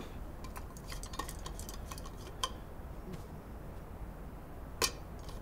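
Faint, irregular small clicks and ticks over a low room hum, with a sharper click about halfway through and the loudest one near the end.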